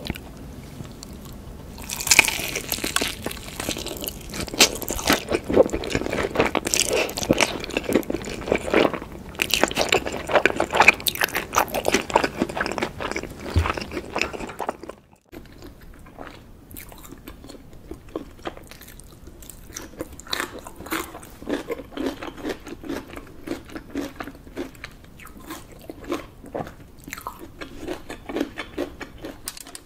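Close-miked eating sounds: crisp crunching bites and chewing of sauce-coated fried chicken, dense and loud for most of the first half. It cuts off suddenly about halfway through, giving way to quieter, sparser wet chewing and clicks as a whole roast chicken is eaten.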